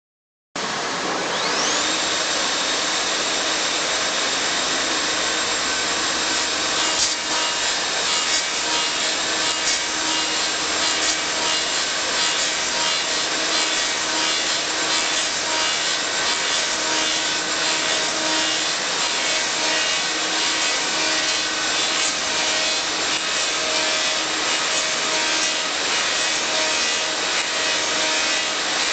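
Elio Valeri 4M/65E wood copy lathe running, its turning and sanding heads working a wooden blank: a steady loud machine noise with a high whine that climbs in pitch in the first second or two and then holds steady.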